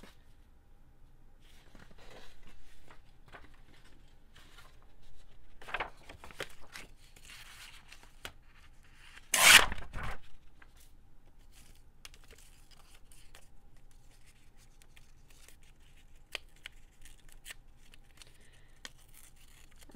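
Paper being torn by hand, with the loudest tear of about a second roughly halfway through. Quieter rustles of paper handling come before it and a few light clicks after.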